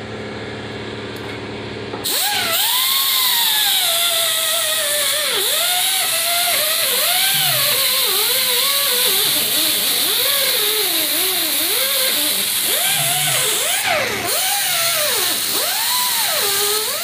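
Small air-powered angle grinder starting up about two seconds in and grinding into the sheet-steel firewall, its whine rising and dipping again and again as the wheel bites and frees. It lets off briefly near the end, then bites again.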